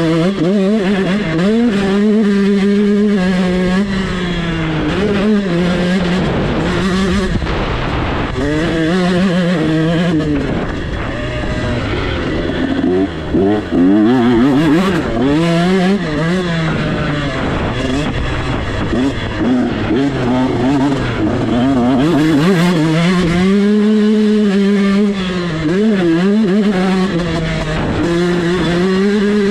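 GasGas 125cc two-stroke motocross bike engine running hard at race pace, its pitch climbing and dropping over and over as the throttle and gears are worked, and held high for a few seconds at a time on the straights.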